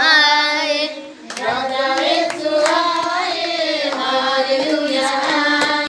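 Voices singing a Hindi devotional worship song with sustained, wavering notes, broken briefly about a second in, with sharp hand claps scattered through it.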